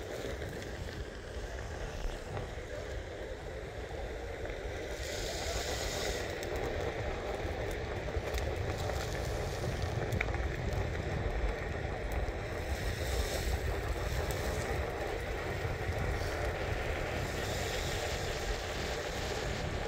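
Steady rumble of wheels rolling over pavement while moving, with wind buffeting the microphone.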